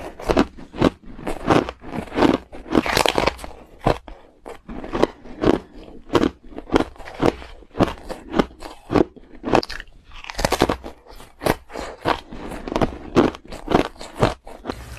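Ice being bitten and chewed: a steady run of sharp crunches, about two to three a second, with a denser flurry about ten seconds in.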